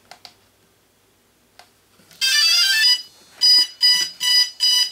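DJI Phantom 2 Vision quadcopter powering up: after a few faint clicks, a short start-up tune of rising electronic notes, then four short beeps.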